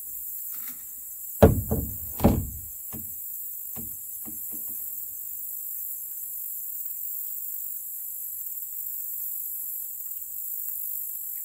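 Knocks and thumps in a canoe: three heavy thumps about a second and a half to two seconds in, then a few lighter knocks, over a steady high insect drone.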